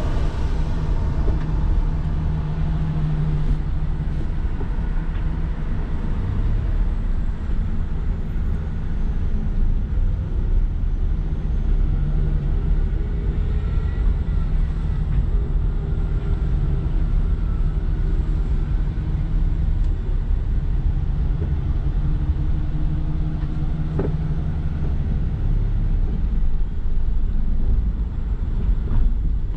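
Steady low rumble of a car's engine and tyres heard from inside the cabin as it creeps forward at low speed.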